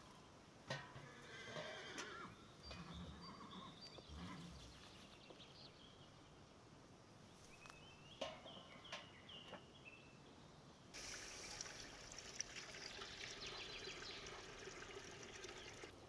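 A heavy metal cooking pot is set down on a stone hearth with a sharp knock and some clatter. About eleven seconds in, a steady splashing stream of water starts, poured from a metal kettle into the pot.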